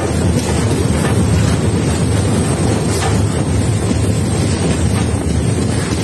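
Steady rumble of a moving train, with wind buffeting the microphone and a few faint clicks.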